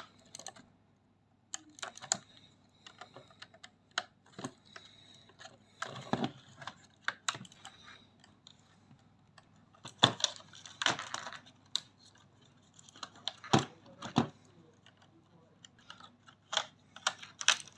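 Hands working inside an opened Ecovacs Deebot robot vacuum, handling its plastic parts and the anti-drop sensor's wiring: irregular light clicks, taps and rustles, with a few louder plastic knocks about ten and thirteen seconds in.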